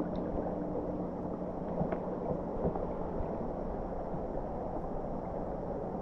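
River water rushing and gurgling around a camera held half in the water, a steady low rush with a few faint ticks.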